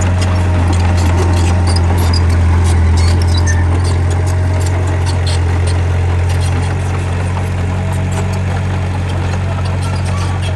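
Bulldozer's diesel engine running steadily, a deep even hum, with scattered small clicks and rattles over it.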